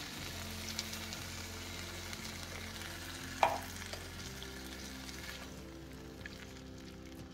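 Chicken, potatoes and carrots sizzling in a frying pan as chicken stock is poured in and the food is stirred with a spatula. One sharp knock a little past three seconds in.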